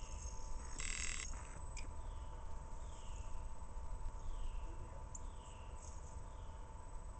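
Frogs calling in short, falling chirps about once a second over a low rumble. About a second in, a loud hiss lasts half a second.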